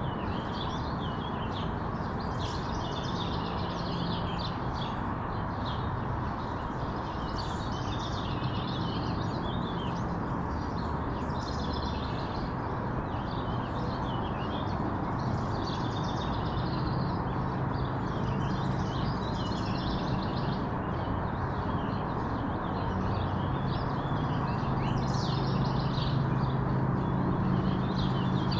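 Many small birds chirping and twittering at once in a dense, continuous morning chorus, over a steady low background hum and rush that swells a little in the second half.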